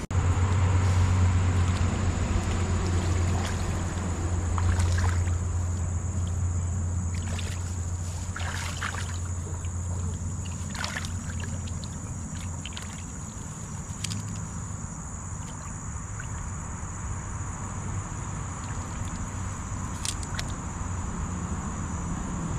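Hands sloshing and splashing in shallow stream water, with short splashes now and then, over a steady low hum and a steady high whine.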